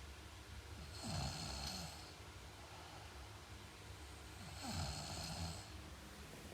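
A sleeping person snoring: two snores, one about a second in and another near five seconds, each lasting about a second with a hissing edge.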